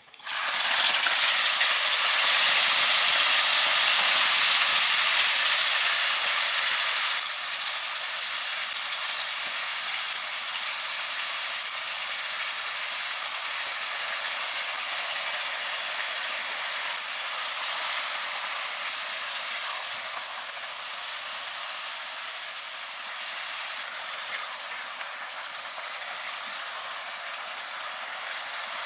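Sliced beef sizzling in hot oil and fried garlic in a wok, starting suddenly as the meat goes in. The sizzle is loudest for the first several seconds, then drops about seven seconds in to a steadier, quieter sizzle as the beef fries.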